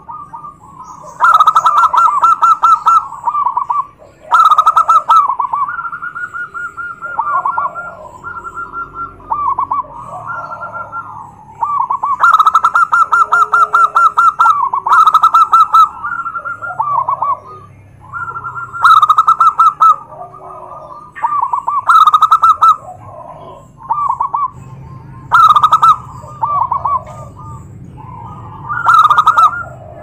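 Several zebra doves (perkutut) cooing at once, their overlapping rapid, rattling coo phrases coming one after another. A loud burst stands out about every three seconds over softer calls between.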